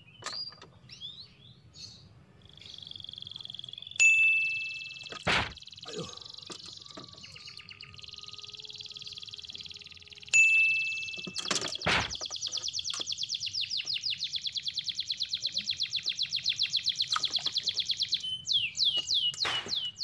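Fishing tackle being handled on a raft: a few sharp knocks, and a fast, even ticking of about eight a second in the second half as a small spinning reel is worked. Quick bird chirps come now and then.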